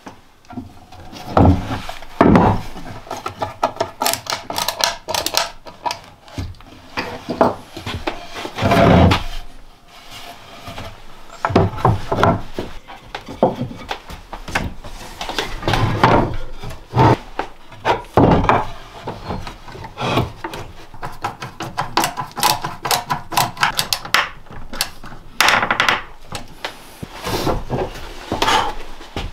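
Wood being worked by hand: irregular wooden knocks with scraping, rasping strokes between them.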